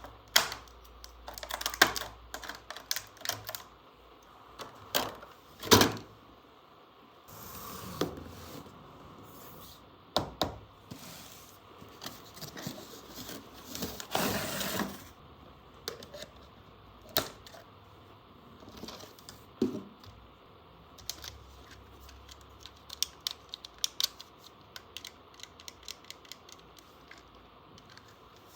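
Small plastic toy pieces clicking and tapping as they are handled, in irregular runs of sharp clicks. Twice there is a longer rustle, like plastic packaging being handled.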